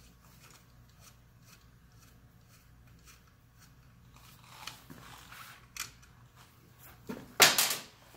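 Faint metallic clicks and light rattling as an M6 screw is worked out of a motorcycle's auxiliary-light mounting bracket with a T30 Torx driver, then a loud, brief clatter near the end.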